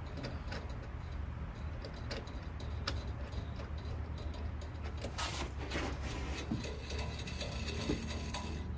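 Light clicks and scrapes of cable railing hardware being handled and worked, with a run of fast fine ticking near the end, over a steady low hum.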